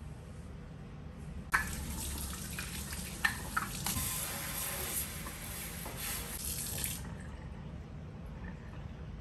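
Pull-down kitchen faucet running into a stainless steel sink as a cloth is rinsed under it. The water comes on about a second and a half in and shuts off about seven seconds in, with a few sharp knocks while it runs.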